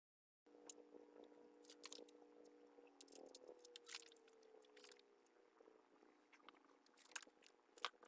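Very faint crinkling and rustling of plastic raffia cord handled and wrapped by hand, scattered small crackles, over a faint steady hum. It starts after a brief dead silence.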